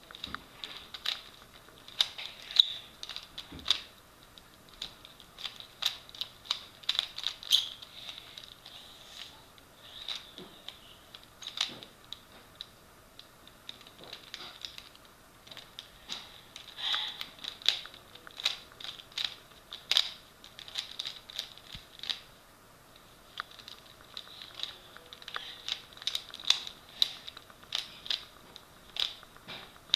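3x3 Rubik's Cube being turned by hand: quick, irregular plastic clicks as its layers are twisted, in runs of turns with short pauses between them.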